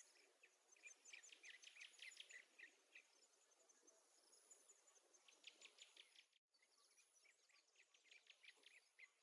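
Near silence with faint runs of quick, high-pitched chirps from a small animal, with a brief complete dropout about six and a half seconds in.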